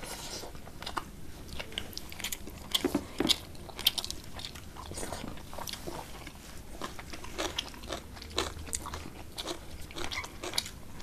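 Close-miked chewing and mouth sounds from people eating rice and curry by hand: wet smacks and clicks throughout, with a few louder bites about three to four seconds in.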